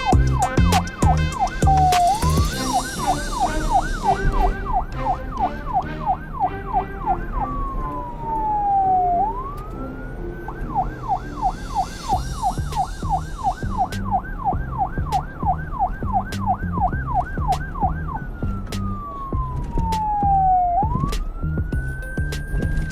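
Electronic police car siren switching between a fast yelp, about three sweeps a second, and slower falling-then-rising wails, over a low repeating beat.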